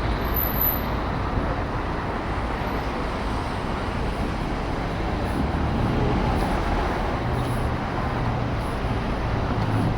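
Steady city street traffic noise, with the low hum of a vehicle engine coming in about halfway through and holding to the end.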